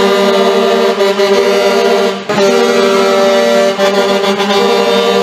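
Grover rectangular truck air horns on a dump truck, blowing a sustained multi-tone chord, cut briefly about two seconds in and then held again.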